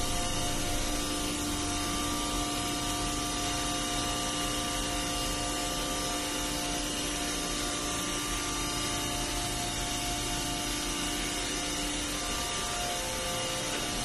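Steady machinery noise from running electric pumps in a ship's pump room, a constant hum with several held tones and no change in level.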